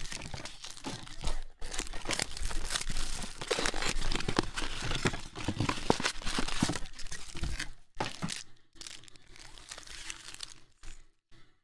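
Clear plastic wrapping and cardboard crinkling and tearing as trading-card packs are pulled from a blaster box by hand. The rustling is dense at first and thins out after about eight seconds.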